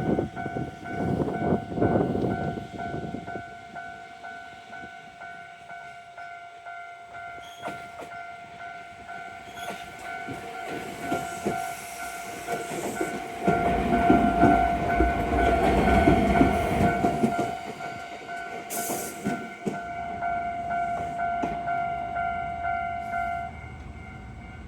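Japanese level-crossing alarm ringing its steady repeating "kan kan" bell, which cuts off shortly before the end. A train rumbles across, loud at the very start and again from about 13 to 18 seconds in.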